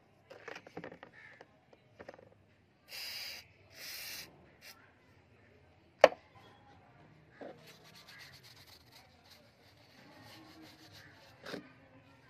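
Rusty steel hammer head handled in a plastic tub: a few clicks early on, two short hisses around three to four seconds in, and one sharp knock about six seconds in, the loudest sound. After that, a paper tissue rubs and scratches over the hammer head as it is wiped, with another small knock near the end.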